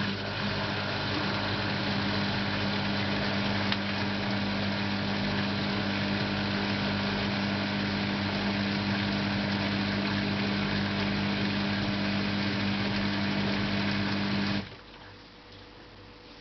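LG 12B8ND washing machine running with a steady, even-pitched hum over a rushing noise, which stops abruptly about fourteen seconds in.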